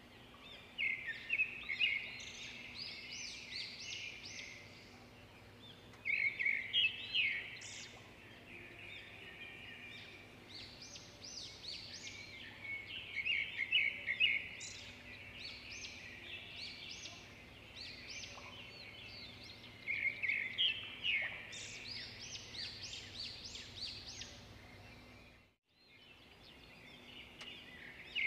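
Songbirds chirping and singing in bursts of rapid high chirps every few seconds, over a faint low steady hum. The sound cuts out for a moment near the end.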